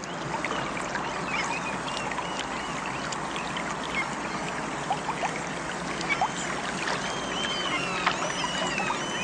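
Many small birds calling at once in a dense, busy chatter of short chirps and gliding notes, over a steady rush that sounds like running water.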